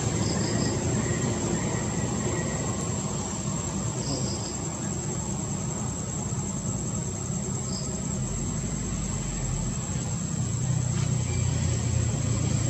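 Steady outdoor background: a low rumble like distant traffic under a constant thin, high-pitched whine, with short triple chirps every few seconds.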